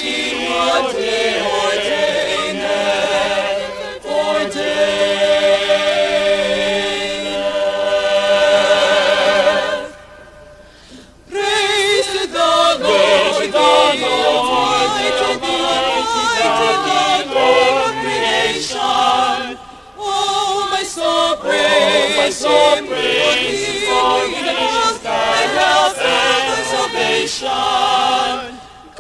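Mixed choir of men and women singing sustained chords, breaking off for about a second and a half partway through before singing on.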